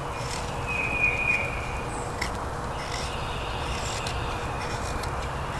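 Knife blade scraping and shaving thin curls off a stick of fatwood, soft strokes over a steady outdoor background, with a faint high chirp about a second in.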